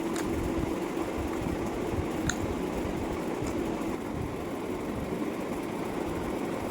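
Steady mechanical hum with a steady low tone, broken by a few faint short clicks.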